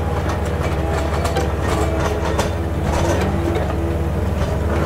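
Small electric motor and gears of a miniature tracked toy excavator running steadily with a low hum, its plastic tracks clicking and clattering as it rolls.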